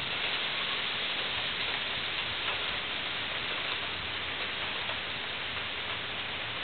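Steady rain falling during a thunderstorm: an even hiss with no thunder heard.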